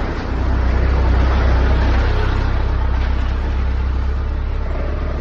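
Road traffic rumbling, with a vehicle passing close that swells about a second in and slowly fades.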